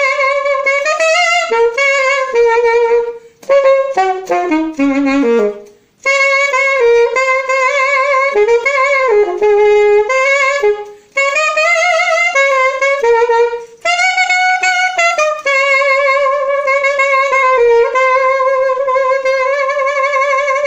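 Unaccompanied saxophone playing jazzy phrases with short breaths between them, including a falling run, and vibrato on the long held notes near the end.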